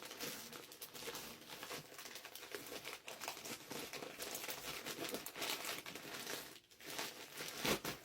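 Packaging crinkling and rustling as it is handled and pulled open, with a sharper crackle near the end.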